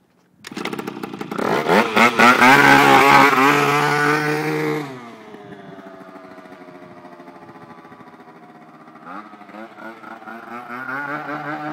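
Tuned Aprilia Rally two-stroke scooter with a Malossi MHR expansion-chamber exhaust, revving hard as it pulls away, its note climbing. About five seconds in the revs drop sharply and it runs on more quietly as it rides off, then revs up again near the end.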